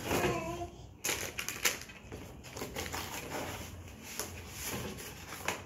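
Hard plastic toy track pieces clattering and clicking as a child rummages in a cardboard box and pulls them out.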